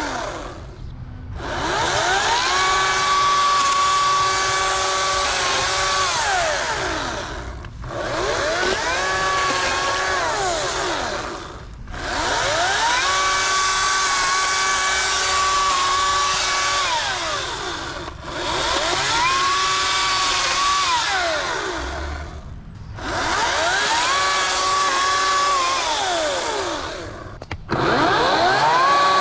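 Ryobi 40-volt 14-inch cordless electric chainsaw revved in repeated bursts while cutting branches. About six times the motor whine rises, holds steady, then winds down, with short pauses between. The last burst starts near the end.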